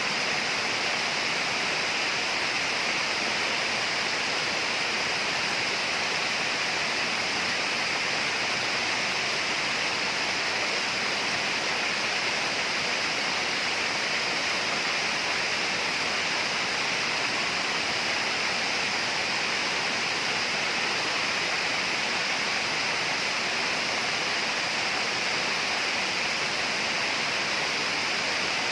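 Steady, unbroken tropical rainforest ambience: an even rushing hiss that does not rise or fall, strongest in the upper-middle and high range.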